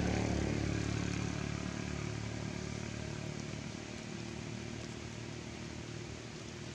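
An engine droning past, loudest at the start and fading steadily as it moves away.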